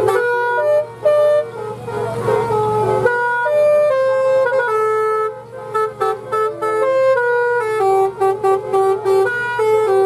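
A bus's 'basuri' telolet musical horn playing a quick tune of stepped notes, one after another with short breaks. A low rumble runs under the first three seconds.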